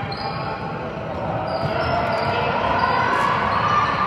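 Youth basketball game in a gym: the ball bouncing on the court and sneakers squeaking, over spectators' voices that grow louder about halfway through.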